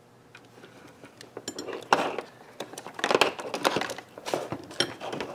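Small hard objects, metal tools and parts, clinking and clattering as they are handled and set down on a workbench: an irregular series of sharp clicks and rattles, loudest about two and three seconds in.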